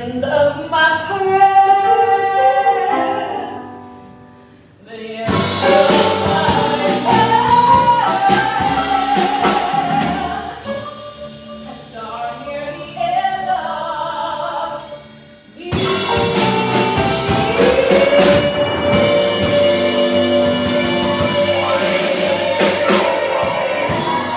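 A woman singing a song over instrumental accompaniment, with two brief lulls between phrases and a long held note near the end.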